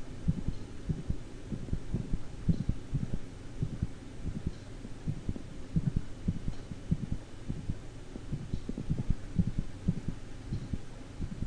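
Recorded heartbeat of a dog with a mid-systolic click: a sharp, snapping extra sound between the first and second heart sounds, typical of a degenerative mitral or tricuspid valve. Sinus arrhythmia makes the beats come at slightly uneven intervals.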